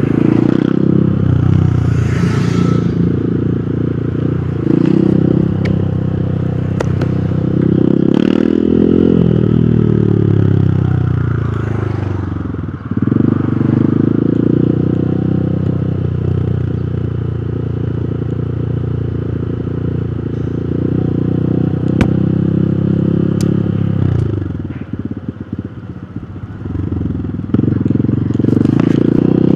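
Hero Hunk's 150 cc single-cylinder four-stroke motorcycle engine under way. The revs climb and fall back again and again through gear changes. About three-quarters of the way in the revs drop off and the engine runs lower and quieter, then picks up and climbs again near the end. A couple of sharp clicks are heard past the middle.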